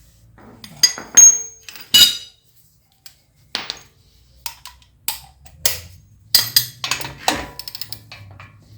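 Metal tools and parts clinking and knocking at an irregular pace as the front axle nut is fitted back onto the hub, a few of the strikes ringing briefly.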